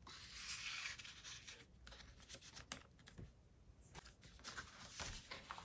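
Card-stock tag sliding into a vellum pocket: a short paper rustle in the first second, then faint scattered rustles and light taps of paper being handled.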